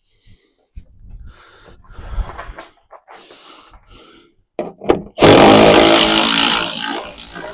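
A power tool backs out a headlight mounting bolt. First come a few quieter rattles of the tool against the bolt. About five seconds in the motor starts suddenly and runs loudly for a couple of seconds, then tapers off as the bolt comes free.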